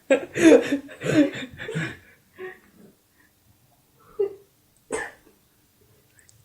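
A person's voice in short bursts of vocal sound without words for about two seconds, then mostly quiet apart from a short, sharp noise about five seconds in.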